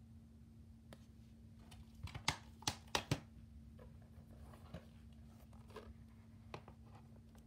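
Plastic DVD cases being handled: a quick run of four or five sharp plastic clicks about two to three seconds in, like a case snapping shut, with lighter taps and ticks around it.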